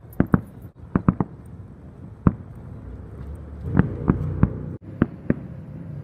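Fireworks going off: about a dozen sharp bangs at irregular intervals, some in quick pairs and triplets. A steadier rumble swells under them between about three and a half and five seconds in.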